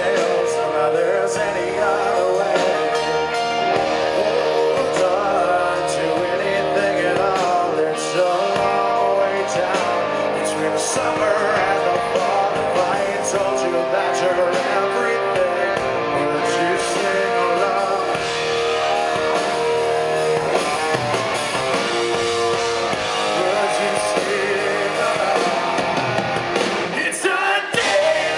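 Live rock song: a male lead vocal sung into a microphone over strummed guitar and band accompaniment, played at a steady level throughout.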